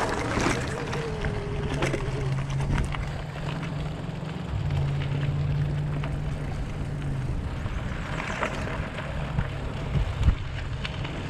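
Electric mountain bike ridden along a dirt and gravel trail: tyres rolling and crunching, with rattles over bumps and a sharper knock near the end, under a steady low hum.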